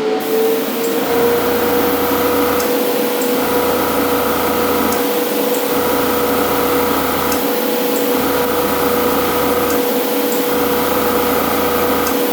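A small airbrush compressor and a spray booth's exhaust fan running together, loud. There is a steady hum that rises slightly in pitch over the first second as it comes up to speed, and a second machine sound that cuts in and out about every two and a half seconds.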